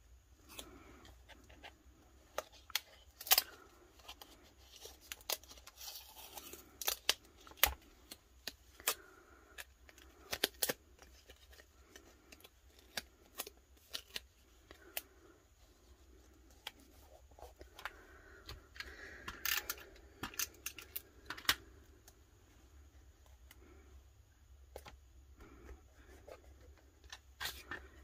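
Paper and card pieces handled by hand on a journal page: irregular small clicks, taps and rustles as the cut-outs are moved and tucked into place.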